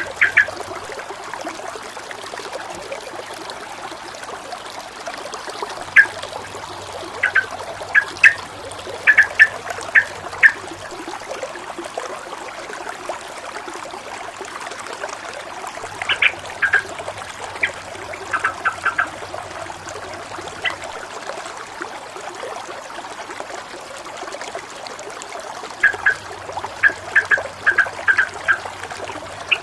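Water flowing and trickling steadily, with clusters of short, sharp chirp-like sounds about every ten seconds.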